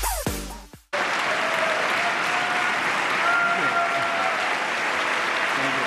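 A large crowd giving a standing ovation, steady dense clapping that starts about a second in, right after a burst of electronic music cuts out.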